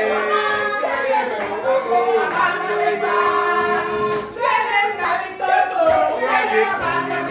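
Group of men and women singing a song together, with occasional hand claps.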